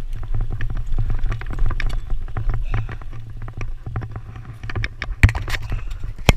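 Mountain bike rattling and clicking as it rolls over a dirt trail, over a steady low rumble of wind on the camera microphone. A louder knock comes about five seconds in.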